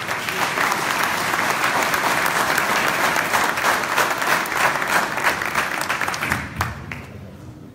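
Audience applauding at the end of a live music piece, dying away near the end.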